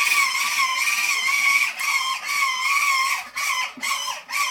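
Electric motor of a Fisher-Price Thomas ride-on toy whining as it drives on its plastic track, the pitch wavering with speed. About three seconds in, the whine breaks into short bursts that each wind down in pitch as the drive is switched on and off.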